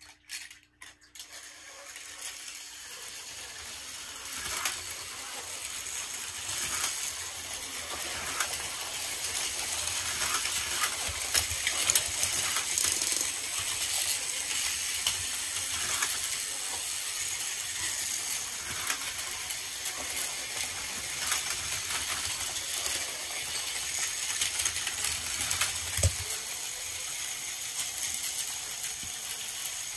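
Several battery-powered Plarail toy trains running at once on plastic track: a steady rattling clatter of small motors and plastic wheels over track joints, with many small clicks and knocks as cars bump, derail and topple. A stronger knock comes about 26 seconds in.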